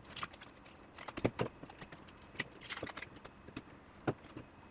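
Aluminium foil stuck on a mini PC motherboard being peeled off, crinkling and crackling in irregular small clicks.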